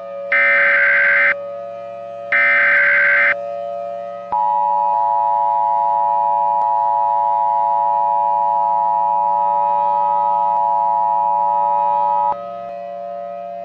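Emergency Alert System header tones: the last two of three buzzy digital SAME data bursts, each about a second long, then after a short gap the two-tone EAS attention signal, held steady for about eight seconds and cutting off abruptly. A steady low drone runs underneath.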